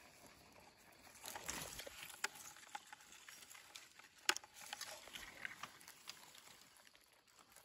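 A knife and gloved hands digging a wild mushroom out of dry leaf litter and soil: faint rustling and scraping, with a few sharp ticks, the sharpest about four seconds in.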